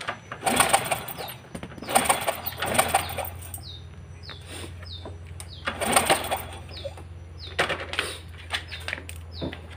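Honda Supra Fit motorcycle engine cranked with its kick starter in four separate strokes, turning over without settling into a run, as a test of the AC ignition's source-coil output.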